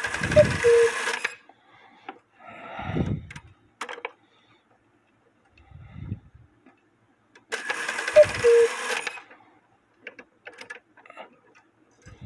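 Antique Alexander Fleig cuckoo clock giving its bellows cuckoo call twice, about seven seconds apart: a short higher note then a longer lower one over hissing air. Scattered clicks from the movement come between the calls.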